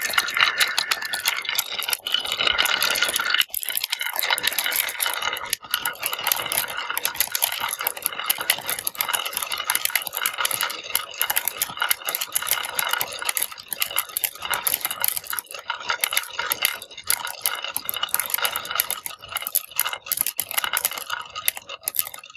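Many marbles rolling and clacking down a marble run of transparent slopes, a dense, continuous rattle of small clicks.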